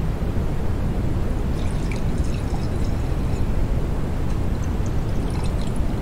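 Beer fizzing in a glass: a steady low rush with faint crackles of popping bubbles now and then.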